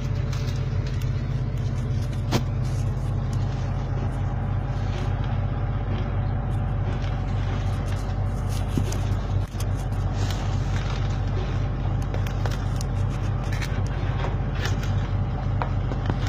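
Heavy equipment diesel engine running steadily under a low drone, with scattered short clicks and knocks.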